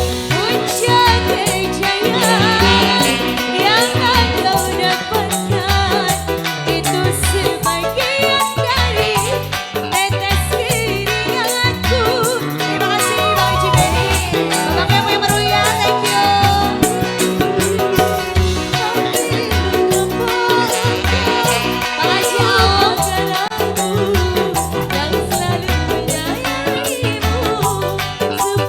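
Band music with busy hand-drum rhythms under a wavering, ornamented melody line, playing steadily throughout.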